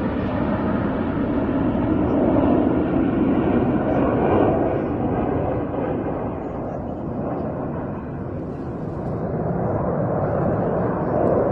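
Jet engine roar from a formation of Aermacchi MB-339 jet trainers flying overhead: a steady rumbling roar that eases somewhat past the middle and swells again near the end.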